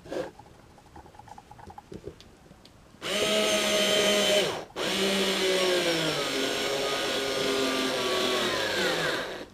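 Skil 2248 4.8 V mini cordless screwdriver's motor whining as it turns a screw in a wood block, on a battery at about 40–50% charge. There is a click near the start, then two runs with a short stop between them, and the pitch sinks slowly through the second run.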